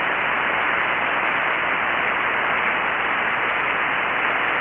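Steady hiss of static from a shortwave ham radio receiver on the 40-metre band, tuned to a single-sideband channel where no station is transmitting. The hiss is even and level, with the treble cut off sharply by the receiver's narrow passband.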